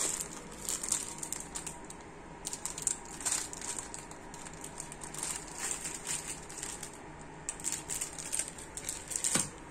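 Clear plastic bag around a TV remote crinkling as it is handled and its buttons are pressed through it: a scattered run of small crackles and clicks.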